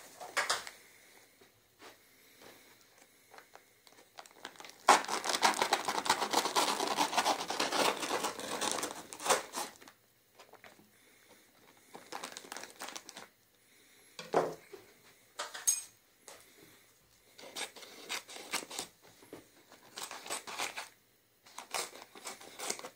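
Paper microwave-popcorn bag being cut open: a loud stretch of paper crinkling lasting about four seconds a few seconds in, then shorter bursts of rustling and cutting as a knife and then scissors work through the paper.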